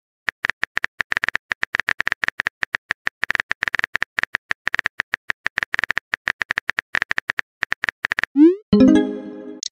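Rapid keyboard-typing click sound effect from a texting app, about eight clicks a second. Near the end it stops and gives way to a rising swoosh and a short chime as the message is sent.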